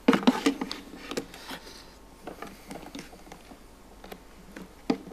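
Bumps, knocks and light clicks of a laptop and equipment being handled and set up on a lectern: a cluster of bumps at the start, then scattered small clicks and taps, with one sharper knock near the end.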